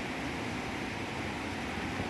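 Rushing river water, a steady even noise with no breaks.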